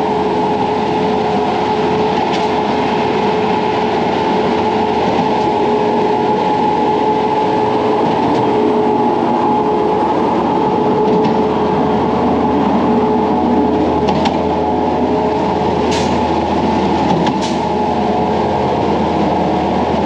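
Heavy diesel truck engines running steadily at a concrete pour: a concrete pump truck and ready-mix mixer trucks, a constant loud drone with a steady whine in it.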